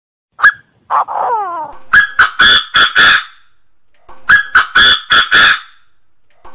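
Chinese francolin calling: two phrases of about five loud, harsh, rhythmic notes each, a second or so apart. A sharp single note and a short falling cry come just before the first phrase.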